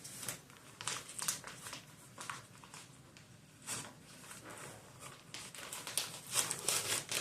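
Cardboard record jacket and paper inner sleeve of a vinyl LP being handled: short scratchy rustles and scrapes of paper and card, sparse at first and busier near the end.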